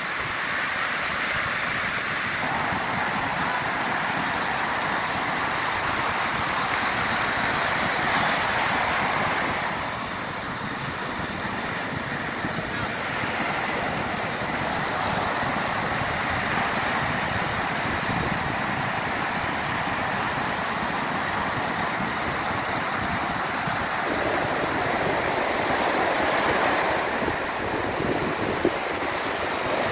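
Ocean surf breaking and washing up a sandy beach, a steady rushing noise that swells and eases as each wave comes in.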